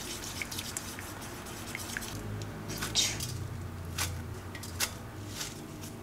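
Chopsticks stirring a thick flour batter in a glass bowl, a soft squishing with light clicks against the glass. About three seconds in, handfuls of cut garlic chives are dropped into the bowl with a rustle.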